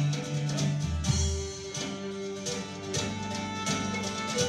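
Scottish folk band playing an instrumental passage live: fiddle over a strummed bouzouki and drum kit, with a few sharp drum strokes.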